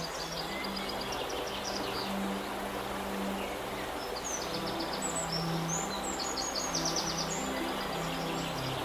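Flowing river water with songbirds singing short, fast, repeated trills several times, over soft slow music with long held low notes.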